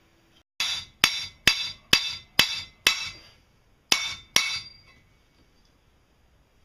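Hammer striking a steel tube set against an aluminium strip on a steel plate: eight sharp, ringing metallic blows, six at about two a second, then a short pause and two more.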